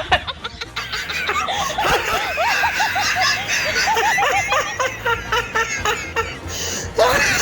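A person laughing in a run of short bursts that rise and fall in pitch, with a low steady hum underneath.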